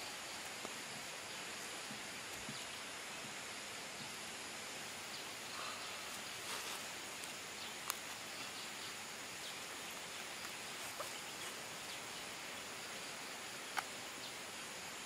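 Steady outdoor ambience with an even hiss, broken by a few sharp light clicks and soft rustles as the sandwiches are assembled by hand, the loudest click near the end.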